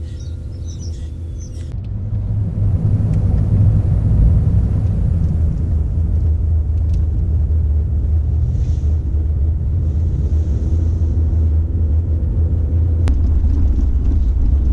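Car driving along a road: a steady low rumble of engine and road noise, growing louder about two seconds in. A single faint click comes near the end.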